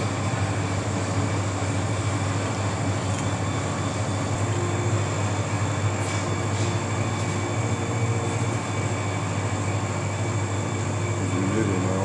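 Steady low hum and hiss of background machinery, with a few faint clicks as a blue-and-yellow macaw's beak works at a beer bottle cap.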